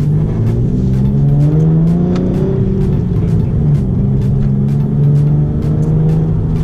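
Nissan 370Z's 3.7-litre V6, fitted with a swapped-in 350Z Y-pipe, heard from inside the cabin under way. The engine rises in pitch as it accelerates for about two seconds, then runs at a roughly steady speed.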